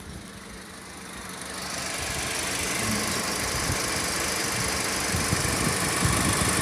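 Mk5 VW Golf engine running at idle under the open bonnet, a steady hum that swells over about a second near the start and then holds.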